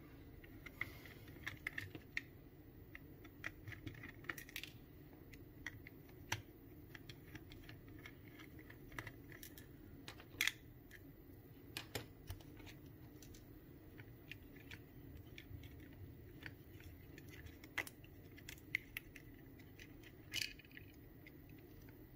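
Scattered small clicks and taps of hands handling the plastic parts of a headphone earcup and a small screwdriver while the circuit board is taken out, with the sharpest click about halfway through.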